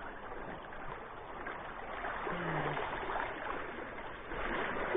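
Shallow river water running steadily, an even rushing sound.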